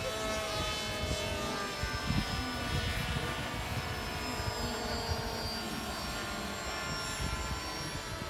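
Several RA Cores BluFO-XL electric foam RC planes flying at once, their motors and propellers making many overlapping whines that drift slowly in pitch. Wind rumbles on the microphone underneath.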